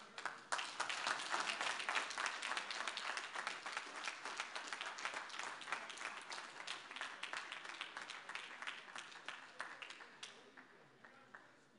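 Audience applauding: dense clapping that gradually thins out and fades away near the end.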